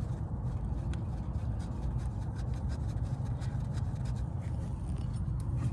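Light clicks and rubbing from hands fitting the bolts of the electric parking-brake actuator on a rear brake caliper, over a steady low hum.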